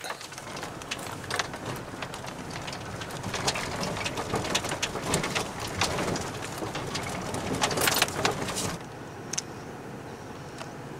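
Off-road vehicle driving slowly over a rocky dirt trail: gravel and stones crunching and popping under the tyres over a low rumble, easing to a steadier, quieter hiss near the end.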